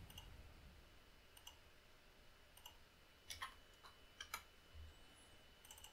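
Faint computer mouse clicks, about eight or nine short, irregularly spaced clicks, a couple of them in quick pairs, as a file is picked in an import dialog.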